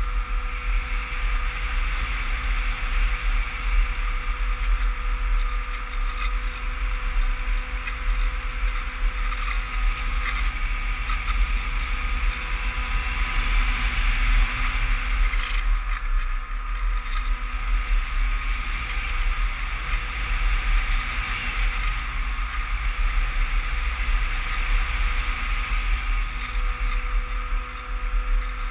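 Steady rush of air over the onboard camera microphone of an FPV RC plane gliding with its motor dead, with a faint steady drone under the wind noise.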